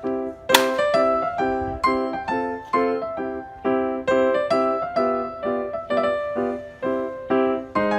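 Background music on a keyboard with a piano sound: short repeated chords at a steady pulse, with one sharp click about half a second in.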